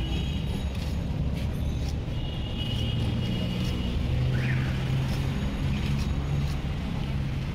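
Busy street traffic: vehicle engines running in a steady low drone, a vehicle horn sounding for about a second and a half a couple of seconds in, and a short rising tone soon after. Sharp clicks of the cutting blade scraping scales off a rohu fish can be heard over it.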